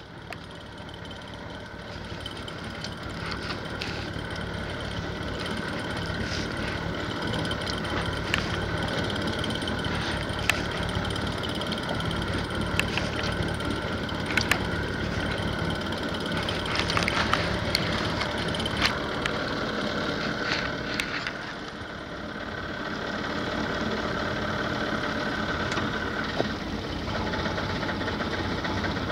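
Boat engine idling steadily at sea, a low hum over wind and water noise, with scattered sharp clicks and knocks.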